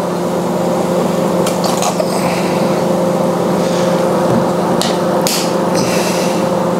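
A kitchen appliance hums steadily under a few short sputtering squirts, as a squeeze bottle of light garlic mayo is drizzled over a plate of vegetables.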